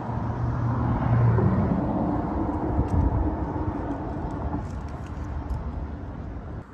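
A passing motor engine: a low, steady rumble that fades away over the last few seconds.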